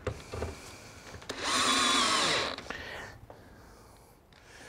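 Cordless drill driving a pre-painted screw with a neoprene washer through metal reglet trim. It runs for just over a second about a third of the way in, then winds down as it stops.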